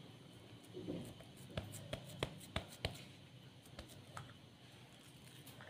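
Faint handling sounds of a plastic kebab mould and hands pressing and patting breadcrumb-coated shami kebab patties on a ceramic plate, with a quick run of about five light taps about two seconds in.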